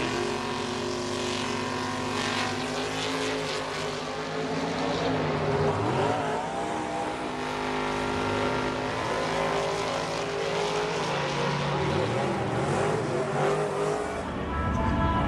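Drag-racing car engines running, their pitch rising and falling several times as they are revved.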